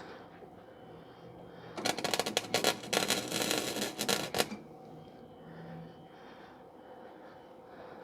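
Electric arc welder crackling through a short weld pass of about two and a half seconds on a steel exhaust hanger, starting about two seconds in and cutting off sharply.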